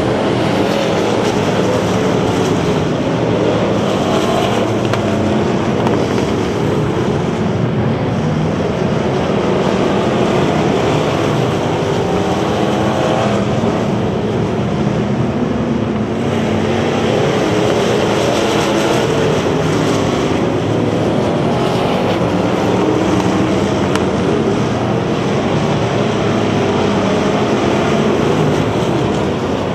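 Several bomber-class dirt-track stock cars racing together, their engines running loud and continuous in one blended drone, the pitches wavering up and down as the cars accelerate and lift through the turns.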